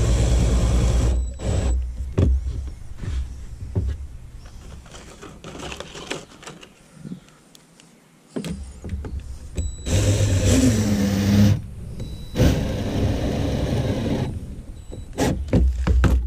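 12-volt DeWalt cordless drill driver running in short bursts, driving stainless steel screws into the plastic hatch ring: one run at the start, then two more after a pause of several seconds, with light clicks and taps in between.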